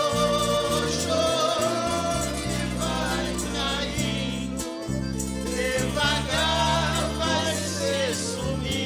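Música caipira performed live: a woman sings held, wavering notes over a band of ten-string viola caipira, acoustic guitars and accordion.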